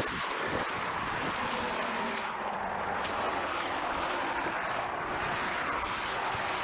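Highway traffic going by: a steady, even rush of passing vehicles with no single event standing out.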